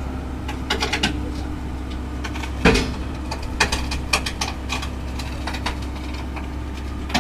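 Heavy excavator's diesel engine running steadily, with irregular sharp metallic clanks and knocks over it, the loudest about two and a half seconds in.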